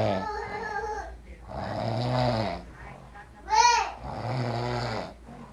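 A man snoring heavily on a sofa, a long deep snore about every two seconds. A short, high squeal that rises and falls, about three and a half seconds in, is the loudest sound.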